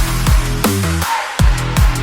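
Electronic dance music with a heavy bass drum and a stepped, pulsing bass line, starting abruptly.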